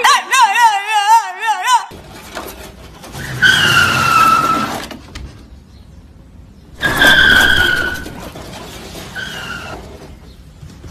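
A bulldog howling in a loud, wavering, sing-song way for about two seconds. After a cut come high squealing cries that dip slightly in pitch: two long ones and one short one, over a noisy background.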